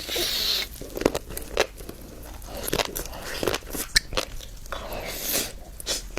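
Close-miked eating of shrimp topped with fish roe: wet chewing and crunching with many sharp clicks, and two brief crackly hisses, one at the start and one about five seconds in.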